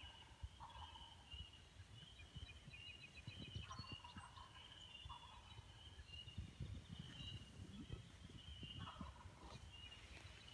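Faint wild turkey gobbling several times, with songbirds singing steadily in quick repeated notes behind it. Low rumbles of handling noise come and go.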